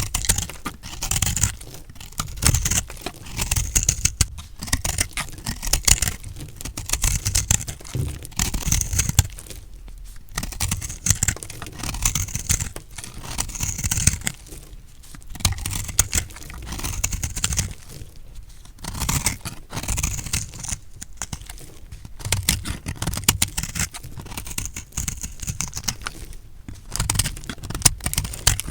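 Recycled soap being cut with a blade: a dry crunching and scraping, stroke after stroke, with short pauses in between.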